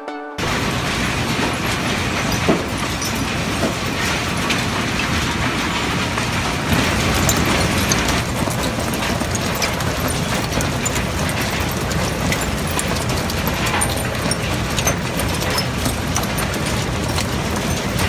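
Waste-sorting machinery running: a loud, steady mechanical din with a constant patter of small clicks and rattles, from a conveyor carrying mixed construction and industrial waste under the intake hood of an Ecohog Airhog EH-81 suction separator. It cuts in abruptly just after the start.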